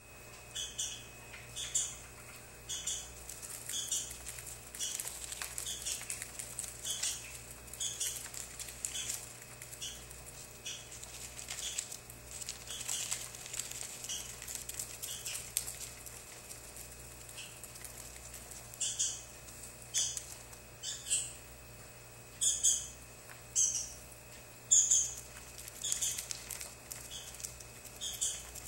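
A small bird giving short, high chirps over and over, one every half second to a second, getting louder over the second half.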